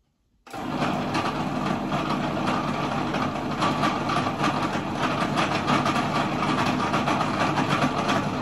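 Food processor motor switching on about half a second in and running steadily, its blade blending a thick chamoy paste of dried apricots, lime juice and olive oil in the small bowl.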